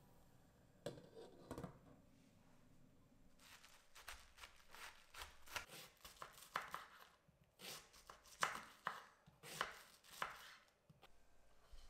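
A knife slicing through red cabbage and striking a wooden cutting board, a quick run of cuts at roughly two a second, after a couple of knocks in the first two seconds.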